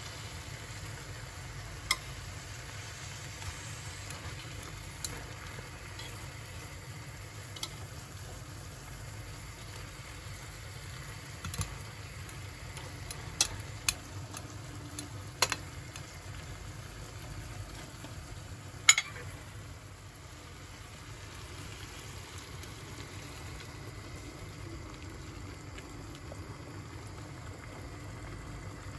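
Food frying in a pan with a steady sizzle, while a utensil stirs it and now and then strikes the pan with sharp clinks, about eight times.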